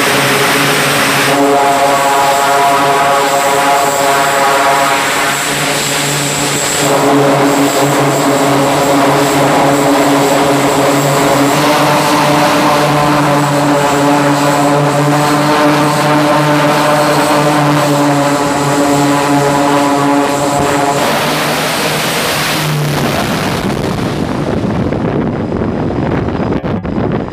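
Twin turboprop engines of an E-2D Hawkeye running at high power on a carrier flight deck: a loud, steady propeller drone made of a stack of even tones. About 22 seconds in the tones drop away into a rushing noise that dulls as the aircraft launches and pulls away.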